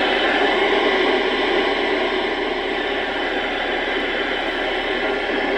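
Steady static hiss from a TriStar 790DX CB radio's speaker as it receives with no voice on the channel. The hiss cuts off suddenly near the end.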